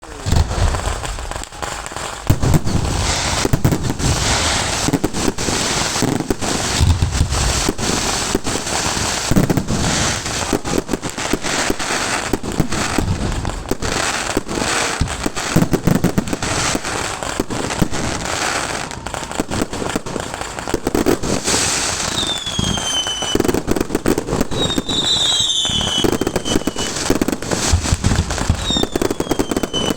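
Fireworks display going off in a dense, continuous barrage of bangs and crackling. From about two-thirds of the way in, several falling whistles cut through the bangs.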